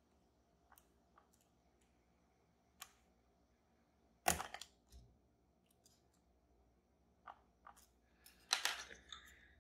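Faint, scattered metallic clicks and taps of a lock pick and tension wrench working the sliders of an EVVA Dual lock, with a sharper click a little over four seconds in and a quick run of clicks near the end.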